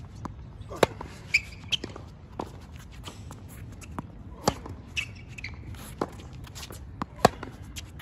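Tennis rally on an outdoor hard court: about ten sharp pops of racket strings striking the ball and the ball bouncing, the loudest about a second in and just after seven seconds, with a few short squeaks of tennis shoes on the court.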